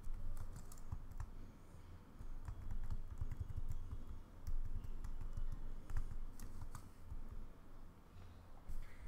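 Computer keyboard keys pressed in short, irregular runs of clacks as code is edited, over a low steady hum.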